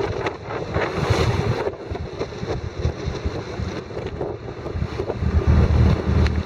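Wind buffeting the microphone aboard a sailing yacht under way, over the wash of choppy water against the hull. The buffeting grows heavier about five seconds in.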